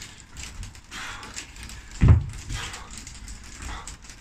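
Feet landing on a plyo box during step-ups: one heavy thud about two seconds in, followed by a couple of softer footfalls.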